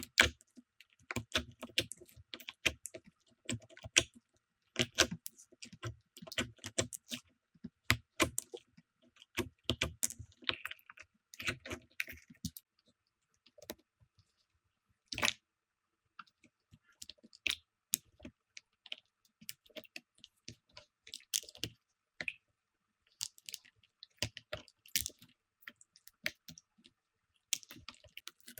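Slime being squeezed and poked by hand, giving irregular sticky clicks and pops in quick clusters, with a quieter pause about halfway through broken by a single louder pop.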